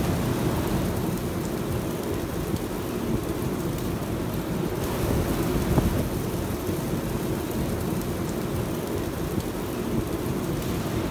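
Rolled chicken shawarma wraps sizzling on a flat-top griddle, a steady hiss over the low rumble of the kitchen exhaust hood.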